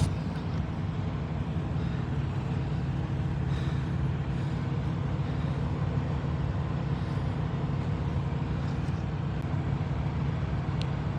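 Semi-truck's diesel engine idling with a steady, even hum.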